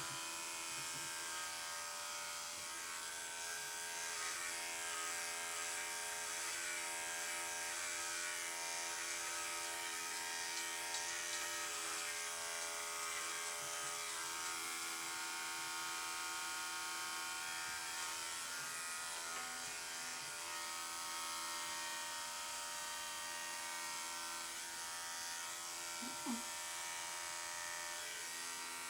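Electric pet grooming clippers running with a steady motor buzz while a poodle puppy is clipped. There is a brief, short sound near the end.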